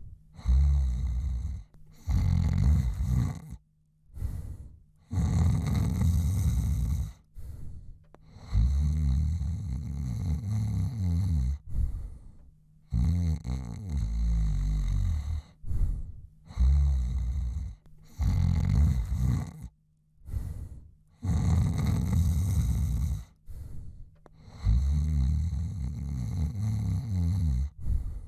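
A man snoring, breath after breath: about a dozen low, rattling snores with short quiet gaps between them.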